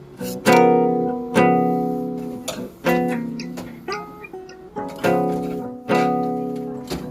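Background music: guitar chords, each struck and left to ring out, about once a second.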